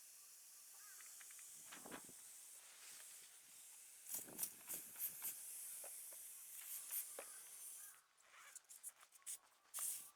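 Steady hiss of air around the car tyre, which cuts off sharply about eight seconds in, followed by several quick clicks and knocks from handling tools.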